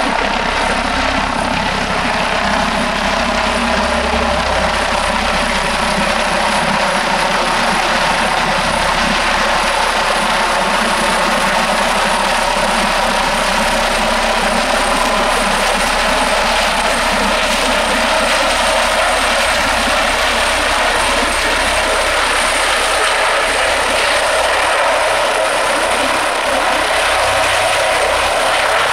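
Airbus H145 five-blade helicopter approaching and descending to land: steady, loud rotor and twin-turbine noise with a thin high turbine whine.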